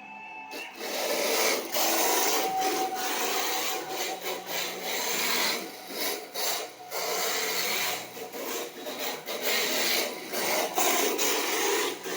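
A Yokomo YD-2E radio-controlled drift car's tyres scrubbing and sliding across the floor as it drifts. The scraping rises and falls in level with short breaks.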